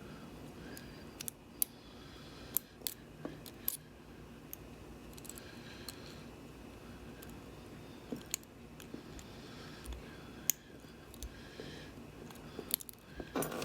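Lock pick and tension wrench working inside a 410 LOTO padlock: small, sharp metallic clicks and ticks at irregular intervals as the pins are set, over a faint steady hiss.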